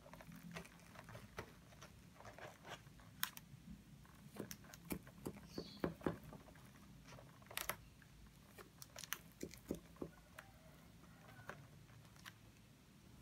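Faint, scattered clicks and soft crackles of sponge cake being eaten close to the microphone: chewing and mouth sounds, a few louder clicks among them.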